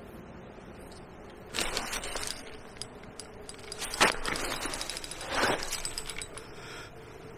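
A fishing rod and reel being handled: rustling and clatter in short bursts, with a sharp click about four seconds in and a run of fine rapid ticks from the reel's mechanism soon after.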